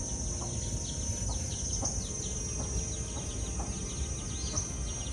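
Outdoor rural ambience: a steady high-pitched insect drone with many short, quick falling bird chirps over it, above a low background rumble.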